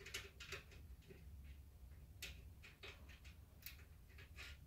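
Faint, irregular small metal clicks and ticks as an M6 screw is worked by hand into the metal rack post to hold a 1U shelf.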